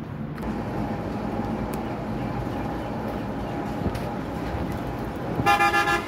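Steady street-traffic noise, then a vehicle horn honking briefly near the end, louder than the rest.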